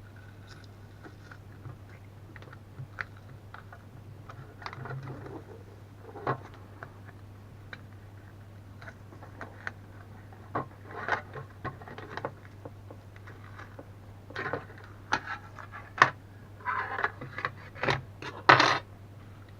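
Small parts and tools being handled while taking apart a power bank: scattered clicks, taps and scrapes, busier and louder in the last few seconds, over a steady low hum.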